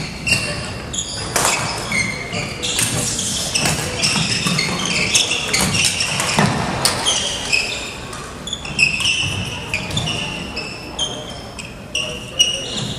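Sneaker soles squeaking on a wooden gym floor in many short, high chirps as badminton players move around the court, mixed with the sharp knocks of rackets hitting the shuttlecock, echoing in a large gym.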